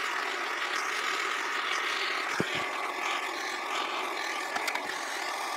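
Handheld gas torch burning with a steady hiss as its blue flame heats the crankcase's crank-bearing bore, warming it toward 250–280 degrees so the new crank bearing can be pressed in.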